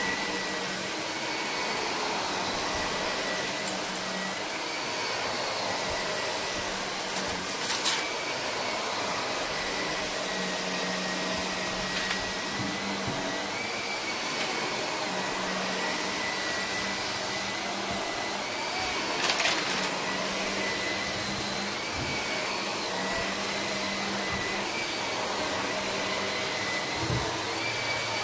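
Shark upright vacuum cleaner running on carpet, its motor whine wavering slightly as it is pushed back and forth. Twice, about a third and two-thirds of the way through, debris crunches and crackles briefly as it is sucked up.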